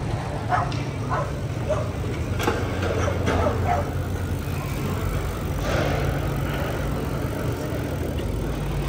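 City street traffic: a steady low rumble of passing vehicles, with short scattered sounds over it in the first few seconds.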